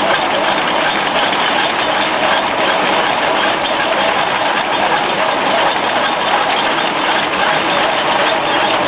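Hydraulic breaker on an excavator boom hammering rapidly and without pause into a brick wall, the chisel's blows and crumbling brick making a dense, steady clatter.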